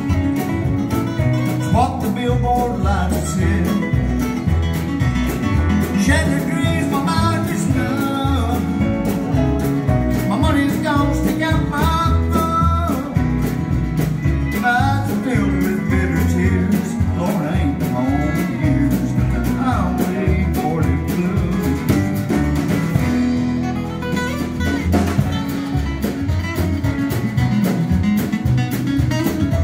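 Acoustic bluegrass-country band playing live: acoustic guitars strumming a steady rhythm over upright bass, with a fiddle playing sliding melody lines.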